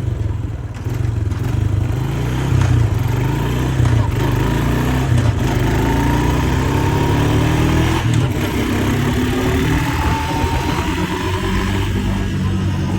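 Honda 400's engine running while being ridden, its pitch rising and easing off as the throttle changes, with a few sharp exhaust pops and crackles mixed in.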